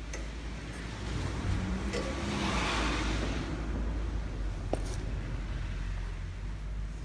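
Honda Benly Pro 50's small air-cooled single-cylinder four-stroke engine running with a steady low hum. It swells in a throttle blip from about a second in, peaking near three seconds before settling back. The running is free of abnormal noise, which the seller takes as a sign of a sound engine, and a single sharp click sounds just before five seconds.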